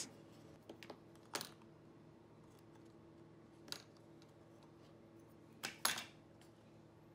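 Faint light taps and clicks of a small wooden door frame being handled and set down on a cutting mat, a few scattered knocks with a close pair near the end.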